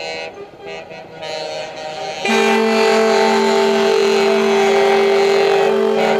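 Multi-tone truck air horns: fainter horn notes at first, then from about two seconds in a loud, steady chord of several pitches held to the end.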